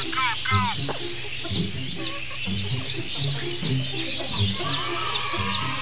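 Chickens clucking at a feed bowl, with a steady run of short, high peeps from young birds, about three a second.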